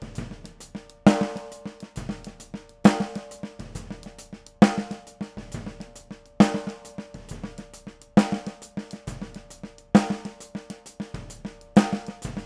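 Drum kit groove heard through the snare drum's close microphone alone. A ringing snare backbeat falls about every 1.8 seconds, with quieter strokes in between.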